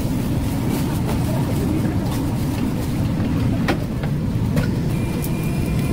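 A steady low rumble with scattered light clicks and knocks, and a faint high steady tone near the end.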